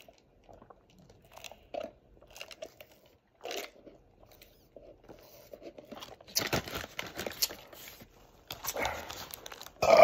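Close-up mouth sounds of eating and drinking: small sips, swallows and lip clicks, then wet smacking and chewing of a Whopper that get busier and louder over the last few seconds, running into a burp at the very end.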